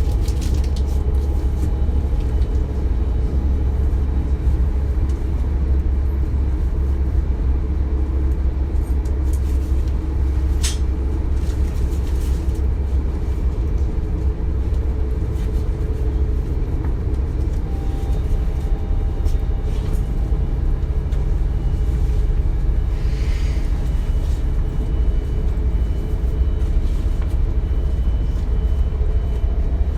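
Interior of a DB Class 425 electric multiple unit under way: a steady deep rumble with faint humming tones layered over it. A single sharp tick comes about a third of the way in, and a brief hiss a little after the middle.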